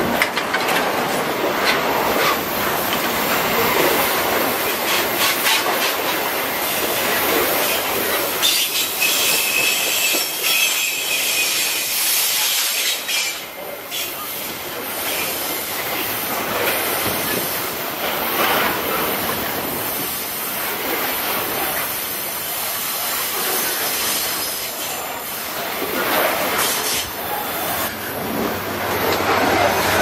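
Loaded freight wagons of a pulp train rolling past close by. Steel wheels rumble and rattle on the rail, with repeated clicks over rail joints and a high-pitched wheel squeal about ten seconds in.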